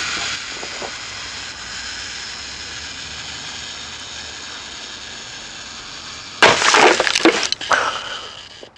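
A lit fuse hissing steadily for about six and a half seconds. Then a small explosive charge goes off, a sudden loud blast with a quick run of sharp cracks and scattering debris over about a second and a half.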